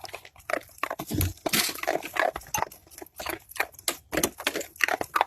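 A pet animal making many short, irregular noises in quick succession.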